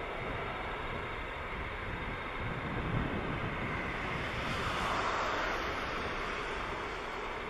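Airbus A380 jet engines running as the airliner rolls along the runway: a steady rushing jet noise that swells about five seconds in.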